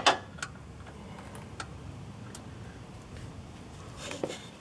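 Camera handling noise while working on the engine: a sharp double click at the start, a few faint ticks, then a short cluster of clicks and rustling about four seconds in, over the muffled scrape of shirt fabric against the microphone.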